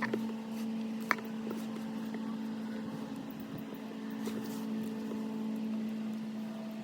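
A steady low hum, with a single light click about a second in.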